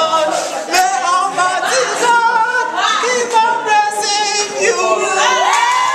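A group of students singing a song together, loud and close. Near the end one voice slides upward.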